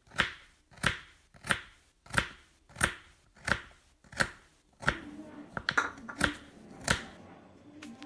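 Kitchen knife chopping fresh coriander on a wooden cutting board: steady single chops about one and a half a second, then quicker, uneven chops for the last few strokes.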